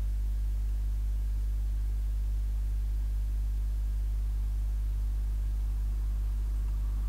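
Steady electrical mains hum, a low 50 Hz drone with its overtones, unchanging throughout with nothing else over it.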